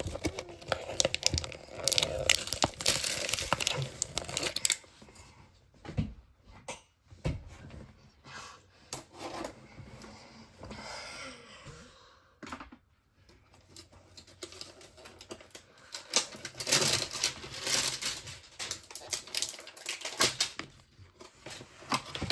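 Plastic wrapping on a box of baseball trading cards being torn and crinkled by hand: a dense crackling spell in the first few seconds, quieter rustling, then another spell of crinkling in the last third.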